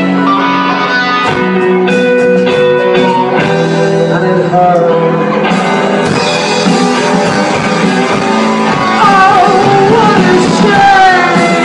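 Live rock band playing loud electric guitars, bass and drum kit, with a man singing into the microphone in the second half, his sung notes bending up and down.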